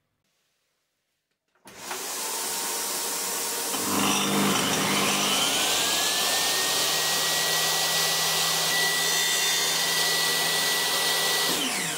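Near silence, then about two seconds in a steady rushing noise starts. A table saw's motor then whines up in pitch over a couple of seconds and runs steadily while a thin sliver is trimmed off a tenon. Near the end it is switched off and the pitch falls as the blade spins down.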